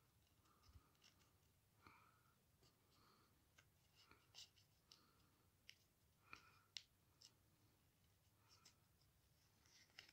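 Near silence, with faint scattered clicks and light scrapes of small plastic Lego minifigure pieces being handled and pressed together.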